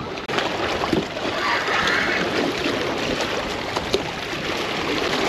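Steady rushing noise of wind and water along the shoreline, with a few faint clicks.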